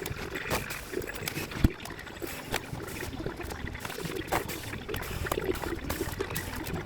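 Irregular clicks, taps and rustling of hands working on a TV set's parts and tools, with one sharper knock about a second and a half in.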